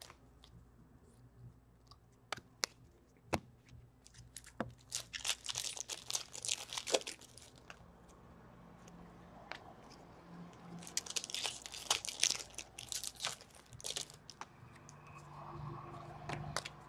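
Foil hockey card packs being torn open and their wrappers crinkled, with cards handled and sorted between. Scattered small clicks, with two longer bouts of crinkling about five and eleven seconds in.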